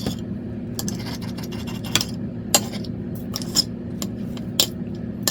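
Knife and fork clinking and scraping on a plate while waffles are cut up, in sharp separate clicks about once a second, over a steady low hum.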